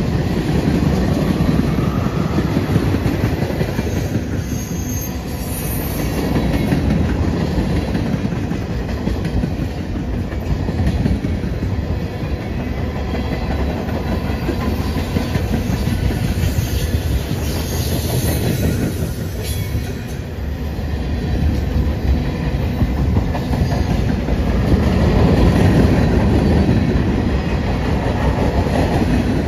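Cars of a CN mixed freight train (tank cars and hoppers) rolling past close by: steel wheels running steadily on the rails.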